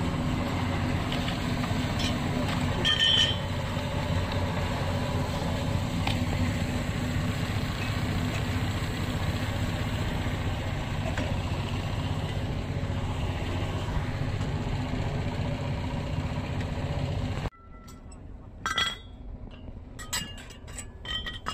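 An engine running steadily with an even drone, which cuts off abruptly near the end. It is followed by a few sharp clinks of hard objects.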